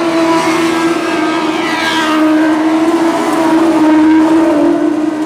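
Lightning sprint cars racing on a dirt oval, their engines running at steady high revs. One car passes close about four seconds in, where the sound is loudest.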